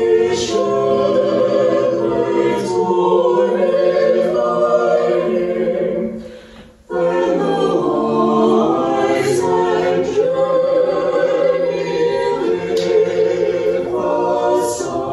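Small mixed choir singing an Orthodox liturgical hymn a cappella. The singing breaks off briefly between phrases about six seconds in and resumes just before seven seconds.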